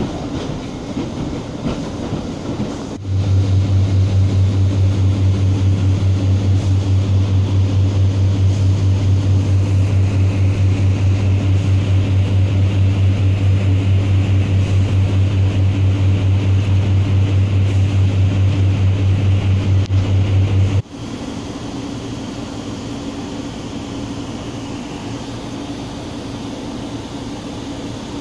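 Interior of a Northern Rail Pacer diesel railbus on the move. A loud, pulsing low drone comes in suddenly about three seconds in and cuts off abruptly about two-thirds of the way through. The train then runs on more quietly as it nears the station.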